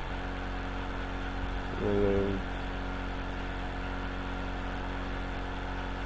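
Steady low electrical-type hum under the recording, made of several even tones. About two seconds in, a short pitched hum lasting about half a second rises above it.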